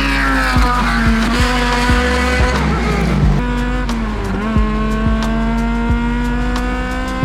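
Music with a steady beat of about two strikes a second and a moving bass line, mixed with a race vehicle's engine accelerating hard: its pitch climbs, falls back about four seconds in, then climbs again.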